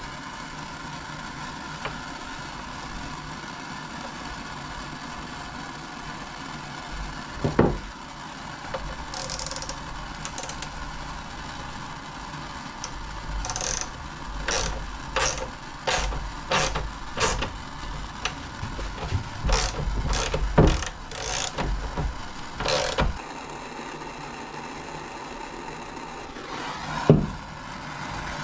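Hand tool worked in short rasping strokes, about a dozen over some ten seconds midway, like a ratchet wrench threading a brass plug adapter into a plastic LS truck intake manifold. A single sharp knock comes before them, over a steady background hiss.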